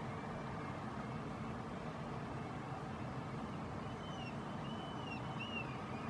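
Several short, faint calls of common gulls, a cluster of arched, falling mewing notes about four to five and a half seconds in, over a steady low background rumble.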